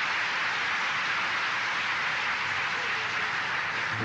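Large audience applauding, a steady, even clapping.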